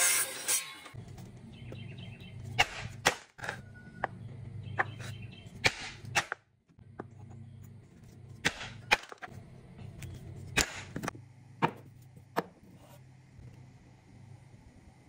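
Miter saw finishing a cut through a block of Osage orange and dying away, then about a dozen sharp knocks and taps of tools on wood, a hatchet striking a small block among them, over a low steady hum.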